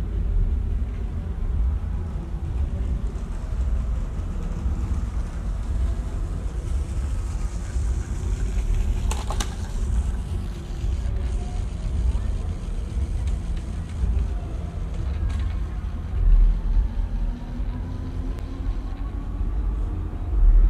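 Night-time city street ambience: a steady low rumble with faint voices. A brief loud burst comes about nine seconds in, and near the end a vehicle engine rises in pitch as it speeds up.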